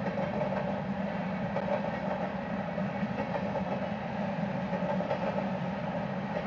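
Freight train of covered grain hopper cars rolling steadily past at close range: a continuous rumble and rattle of steel wheels on rail.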